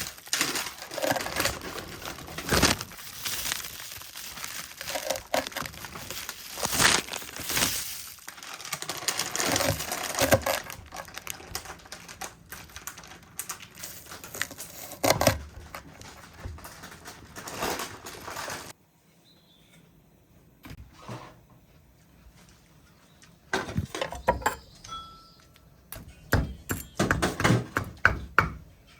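Kitchen handling noises while cooking: irregular crinkling and rustling with scattered sharp clicks and knocks. About two-thirds of the way through the sound cuts off suddenly to a much quieter stretch, then the clicking and rustling returns near the end.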